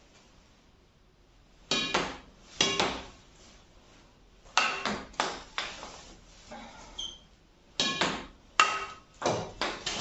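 Apacs Graphite 999 full-graphite badminton racket, strung with the seller's stock string, hitting a shuttlecock against a wall: sharp pinging smacks with a brief ring from the strings, in three bursts of several quick hits with short pauses between them.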